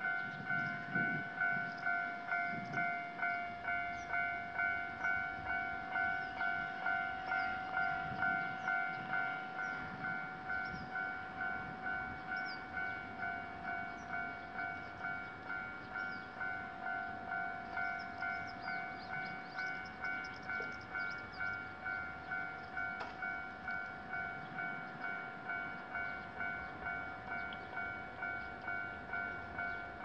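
Japanese railroad crossing warning bell ringing: an even, steadily repeating electronic ding with a ringing tone. It sounds while the barriers are down, signalling that a train is approaching.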